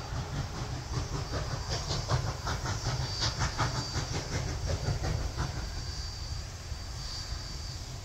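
Distant exhaust chuffs of the Pennsylvania Railroad B4a-class 0-6-0 steam switcher No. 643 working as it approaches: a quick, even run of beats that comes up in the middle and fades again, over a steady low rumble.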